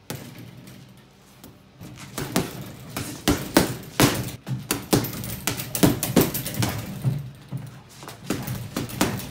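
Boxing gloves punching a hanging Everlast heavy bag: a rapid, irregular string of thuds, about two or three punches a second, coming thick from about two seconds in.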